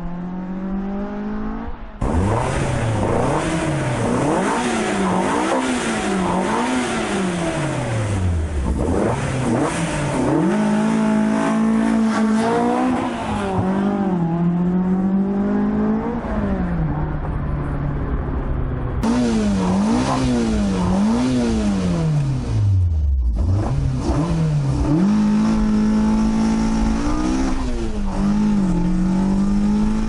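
A car engine revving, its pitch repeatedly climbing and falling, with steadier stretches of held engine speed in between. The sound changes abruptly twice, about two seconds in and a little past the middle.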